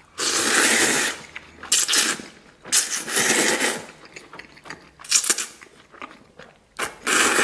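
A person slurping oil-splashed wheat noodles (youpo mian), with a series of about five sucking pulls, each up to a second long.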